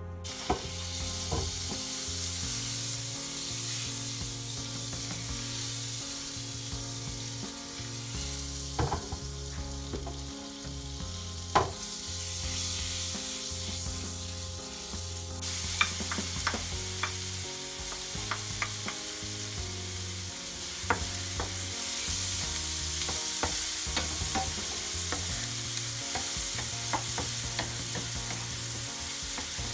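Oil sizzling in a frying pan on a gas burner; about halfway through the sizzling grows louder as diced aromatics fry. A wooden spatula stirs them, with small taps and scrapes against the pan.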